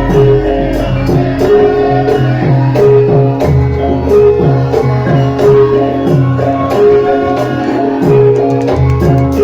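Javanese gamelan music accompanying a Lengger dance: struck metal keyed instruments play a steady repeating melody over short, pitch-bending drum strokes and a low sustained tone.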